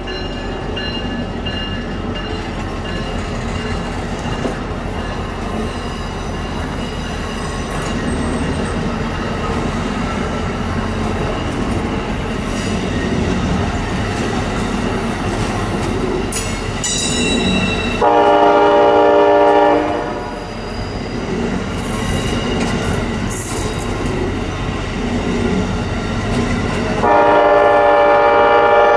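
Amtrak Amfleet passenger cars rolling past on a curve with a steady rumble and wheel clicking. A multi-note train horn sounds twice, about two seconds each, the first a little past the middle and the second near the end; these blasts are the loudest sounds.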